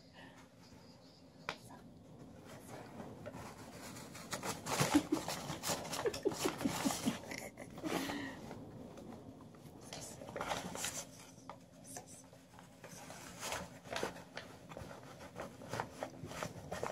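A sheet of junk-mail paper rustling and scraping against a door and carpet in uneven bursts of short scratchy strokes, busiest about five seconds in.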